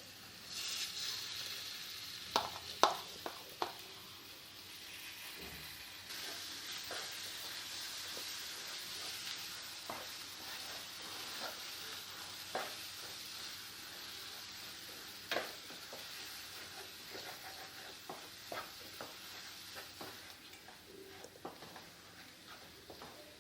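Ground chana paste sizzling as it is sautéed in the tomato masala in a hot pan, with a spoon stirring it and clicking against the pan. The sizzle starts about half a second in and runs steadily, with the sharpest clicks about three seconds in.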